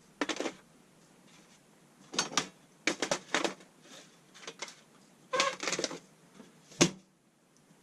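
A socket set being handled: a series of short metallic clicks and clatters in irregular clusters, with one sharp click near the end.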